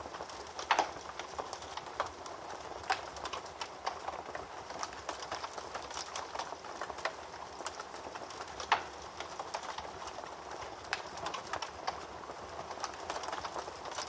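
Wood fire burning in a fireplace: a steady hiss of flame with constant irregular crackling and a few louder pops, the loudest about a second in and near the nine-second mark.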